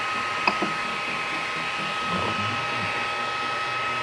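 3D printer's cooling fans running steadily, a constant hiss with a steady whine, and a single click about half a second in.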